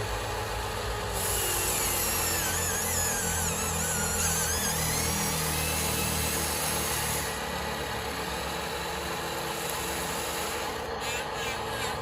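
Small electric motors and gearboxes of radio-controlled construction models whirring, with a high wavering whine that comes in about a second in and drops away around seven seconds in.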